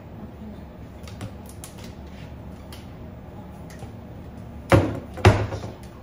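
Light clicking and handling sounds, then two loud sharp knocks about half a second apart near the end, like a hard object or door striking in a kitchen.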